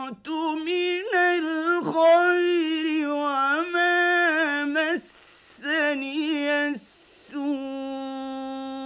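A man's voice chanting Quranic recitation in the drawn-out, melodic tajweed style, with long ornamented notes that bend up and down. He takes two quick breaths about five and seven seconds in, then holds one long steady note to the end.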